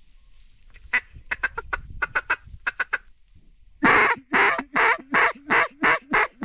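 Mallard hen quacks on a duck call: a quick run of short, softer quacks, then seven loud, evenly spaced quacks near the end. The calling is aimed at ducks flying in toward the decoys.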